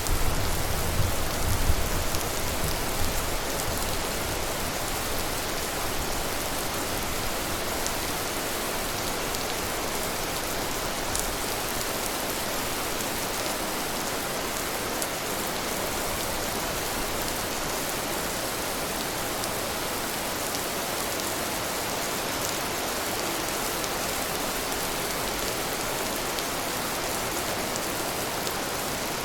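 Steady rain falling, an even hiss. A low rumble of thunder dies away in the first few seconds.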